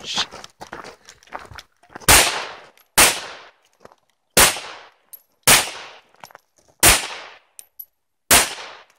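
Six semi-automatic pistol shots fired at a steady pace, about one to one and a half seconds apart, each dying away in a short echo.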